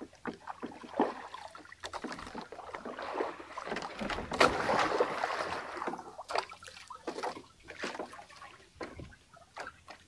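Water sloshing and splashing around a small fishing boat, loudest about four to five seconds in, with scattered small clicks and knocks.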